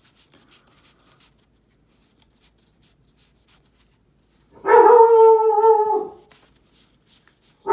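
A dog in the background lets out one long, drawn-out call of about a second and a half, a little past halfway, then a short bark at the very end.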